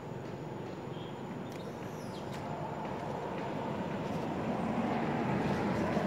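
Steady outdoor background rumble that grows louder through the second half, with a few faint high bird chirps.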